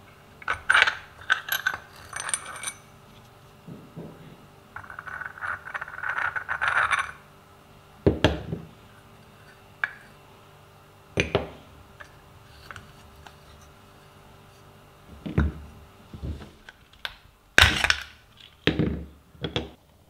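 Small rusty metal parts of an antique Peugeot Frères coffee grinder handled and set down: scattered metal-on-metal clinks and knocks, with a short stretch of rattling clatter about five seconds in and several louder knocks later on.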